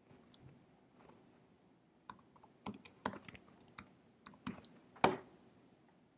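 Computer keyboard typing: a short, faint run of key taps starting about two seconds in, ending with one louder keystroke about five seconds in.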